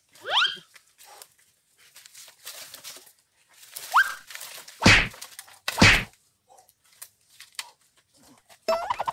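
Footsteps and brush rustling as someone clambers over cut logs with a basket of split firewood on his back, with two heavy thumps about five and six seconds in. Two short rising squeals come near the start and about four seconds in, and music begins just before the end.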